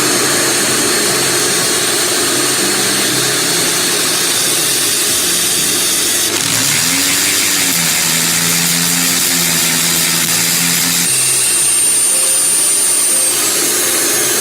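Electric drill boring the second anchor hole into the wall, with a vacuum cleaner running to catch the dust: a loud, steady whirring with a high motor whine that shifts in pitch partway through.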